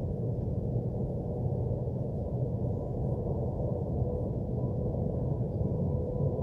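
Steady low drone of commercial or industrial machinery noise from nearby businesses: a deep, even rumble with a faint constant hum tone running through it.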